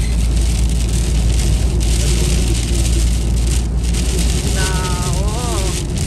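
Heavy rain hitting a car's windshield, with the wipers sweeping across it, over the steady low rumble of road and engine noise inside the moving car.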